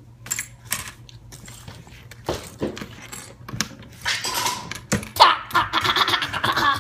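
Play coins and paper play money being handled on a table by a toy cash register: a string of light clicks and clinks. Near the end, a child laughs.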